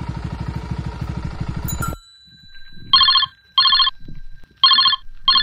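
Motorcycle engine running with a fast, even pulse, shut off abruptly about two seconds in. Then a telephone rings in a double-ring pattern: two pairs of electronic rings.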